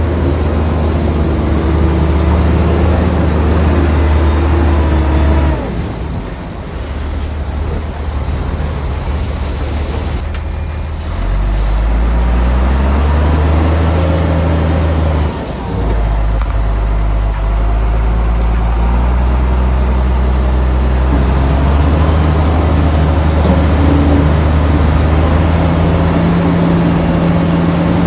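Heavy diesel engine of earthmoving machinery running and working, its low pitch shifting up and down several times as the load changes, with a dip in level about five seconds in and a brief one around fifteen seconds.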